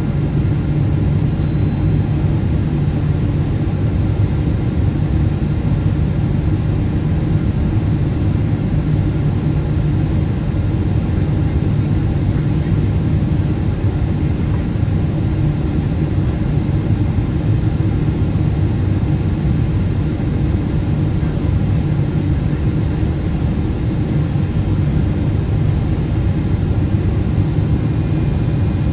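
Cabin noise inside a Boeing 777-200ER on final approach: its GE90 engines and the airflow past the fuselage make a loud, steady, deep drone that holds level throughout.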